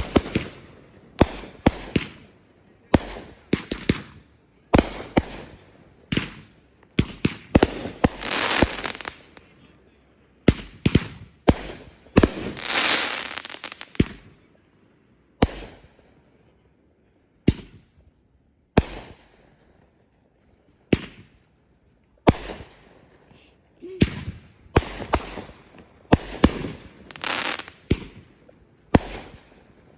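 Consumer fireworks going off: a long irregular string of sharp bangs, about one or two a second, with two longer stretches of crackling a quarter and just under halfway in, and sparser bangs in the middle.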